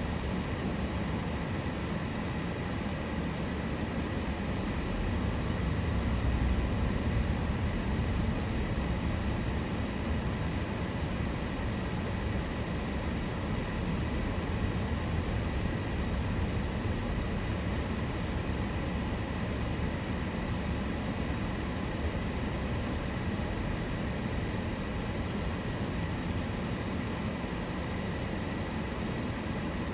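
A car driving: a steady low rumble of engine and tyres on the road, swelling slightly about six seconds in.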